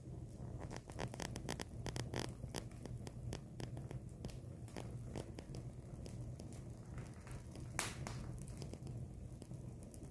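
Wood bonfire crackling, with irregular sharp pops that come thickest about one to two seconds in and one louder snap near eight seconds, over a steady low hum.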